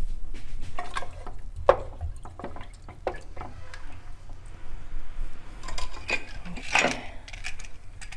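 Wooden spoon stirring pork pieces in water inside an aluminium pressure cooker, with irregular knocks and clinks against the pot and the sloshing of water. A low steady hum runs underneath.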